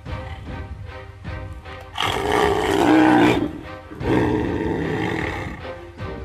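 Tigers roaring while fighting, one long roar about two seconds in and another about four seconds in, over background music.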